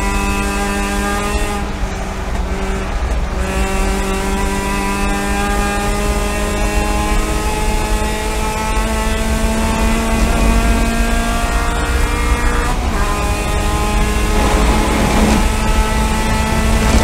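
Spec MX-5 race car's four-cylinder engine at full throttle, heard from inside the cockpit over road and wind noise. The engine note climbs steadily as speed builds, then drops sharply once, about two-thirds of the way through, at an upshift, and climbs again.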